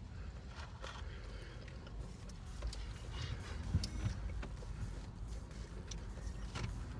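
Faint crunching and scattered soft clicks of peanuts being chewed, over a low steady background rumble.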